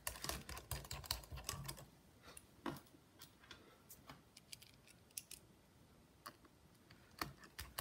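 Light, irregular clicks and ticks of a precision screwdriver turning small screws into a laptop's motherboard.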